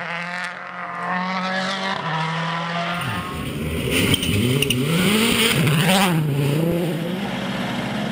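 Rally car engine held at high revs, then from about three seconds in the revs swing sharply up and down several times as the car brakes and changes gear, with a burst of tyre noise at its loudest point in the middle.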